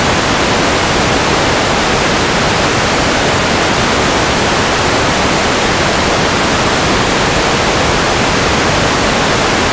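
Loud, steady static hiss with no tones or changes in it, typical of the empty audio channel of an analogue FPV video receiver.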